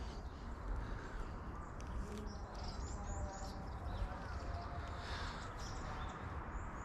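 A school public-address announcement heard from far off: a voice over loudspeakers, faint and carried a long way. Small birds chirp briefly now and then.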